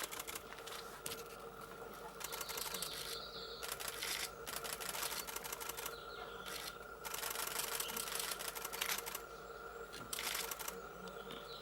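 Camera shutters firing in rapid continuous bursts: several runs of quick clicks, each lasting about one to two seconds, with short gaps between them.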